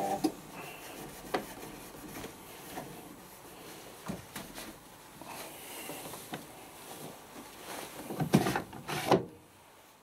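Pro Action A105QW washing machine coming off its spin: the motor's whine cuts out at the start, then the drum runs down to a stop with the laundry shifting inside, amid scattered clicks and knocks, the loudest two close together near the end.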